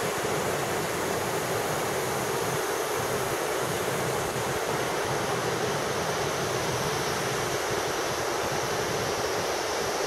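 Steady rushing of a waterfall at a constant, even level.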